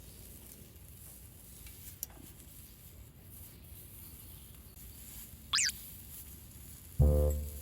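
Faint steady outdoor background hiss with a light click about two seconds in and one quick rising chirp about five and a half seconds in; music starts near the end.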